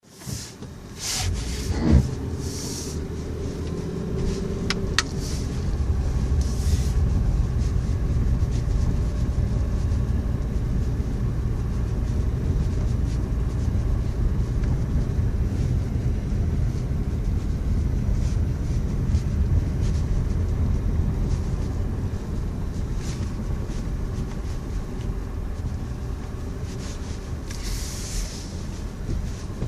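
Wind buffeting the microphone in a snowstorm: a steady, loud low rumble that rises and falls, with a few short hissy gusts near the start and near the end.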